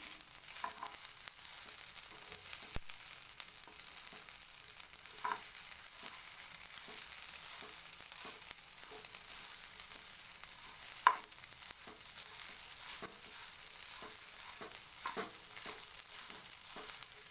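Yangzhou fried rice sizzling in a hot pan, with scattered scrapes and clicks of a utensil stirring it and one sharp knock about two-thirds of the way through.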